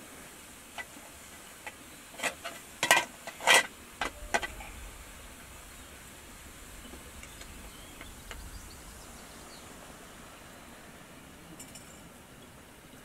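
Tea things being handled: a run of sharp clinks of glass and metal, the two loudest with a brief ring about three seconds in, then only a low steady background.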